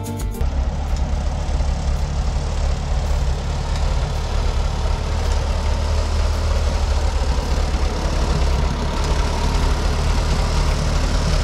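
Case 310 crawler dozer's engine running steadily with a low drone while the dozer crawls and turns on its tracks across dirt.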